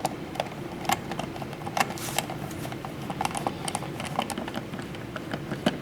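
Irregular small clicks and taps of plastic and metal as a smart dimmer switch and its wires are handled and pushed into a wall electrical box.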